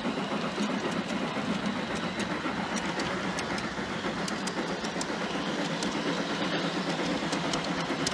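G-scale model freight cars rolling along the track: a steady rolling rumble of wheels on rail, with irregular small clicks as the wheels pass rail joints.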